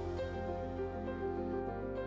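Soft instrumental background music with held notes that change slowly.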